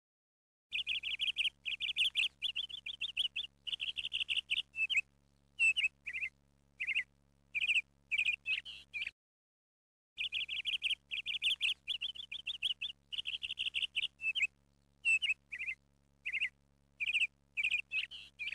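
Small bird chirping and trilling in quick high bursts, a recorded birdsong track: the same run of chirps plays twice, with about a second of silence between.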